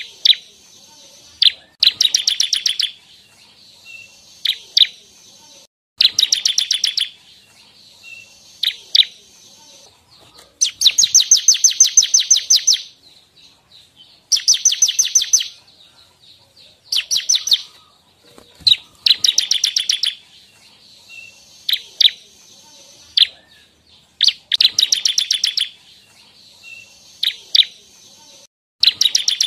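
Bar-winged prinia (ciblek) singing: loud bursts of rapid, evenly repeated high chipping notes, each burst lasting one to two seconds and coming every few seconds, with short single call notes in between.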